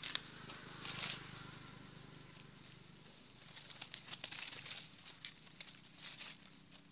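Dry leaf litter rustling and crackling in short, faint bursts as macaques scamper and wrestle on the ground. There is one burst about a second in and a cluster of them a little past midway.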